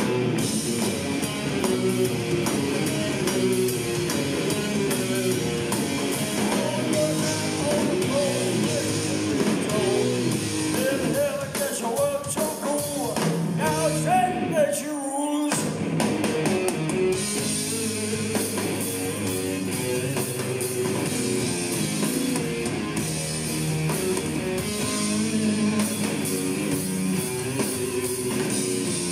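Live doom metal band playing loud: distorted electric guitars, bass and drum kit, with a lead guitar line bending in pitch and a brief break about halfway through before the full band comes back in. Recorded from within the audience.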